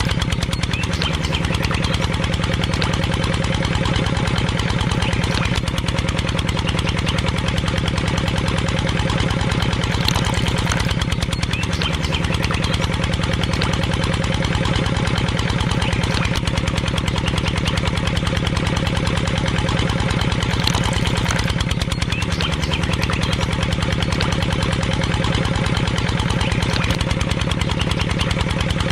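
A small engine running steadily at a constant speed, with a fast, even firing beat.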